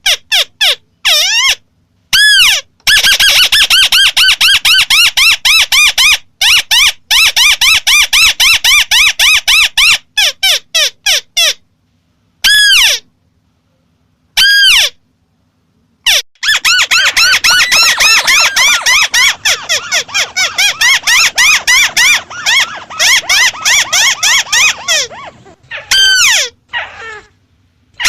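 White-browed crake (Amaurornis cinerea) calling: two long, rapid series of short repeated notes, about four a second, each note a quick arched rise and fall in pitch. The series are broken by pauses and a few single notes.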